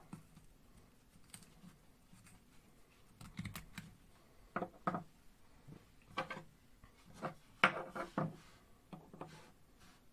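Handling sounds from a wooden awl handle and its steel blade: rubbing of string being unwound from the handle, then a series of small clicks and taps as the pieces are picked up and set down on a wooden bench, the sharpest cluster about eight seconds in.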